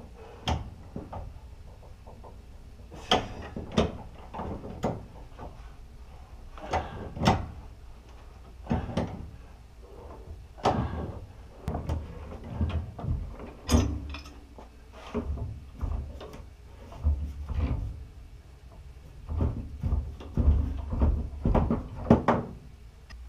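Pipe wrench clanking and scraping on a threaded heating pipe as a fitting is unscrewed, with irregular metal knocks and rattles. The pipe is being disconnected so it can be capped off.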